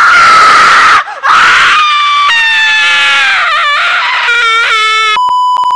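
A loud, shrill scream: a harsh first cry that breaks off about a second in, then one long high-pitched scream whose pitch wavers and wobbles toward the end. It is cut off by a steady high electronic beep lasting about half a second.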